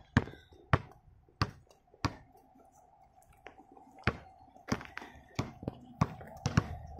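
A basketball being dribbled on a hard track surface: sharp bounces a little over half a second apart, about four, a pause of about two seconds, then a faster run of bounces near the end.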